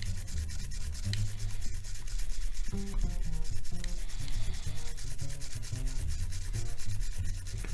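Quick, repeated light rubbing strokes as the body of a Nikon EM film camera is scrubbed clean of grime.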